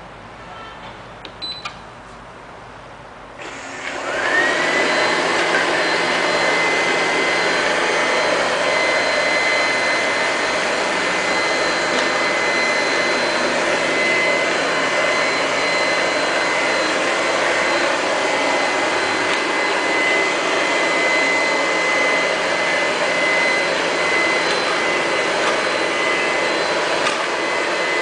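Q5 robot vacuum cleaner being switched on at its panel: a few button clicks, then about three and a half seconds in its suction motor spins up with a rising whine. It settles into a steady high-pitched whine over an even rushing run as the robot cleans.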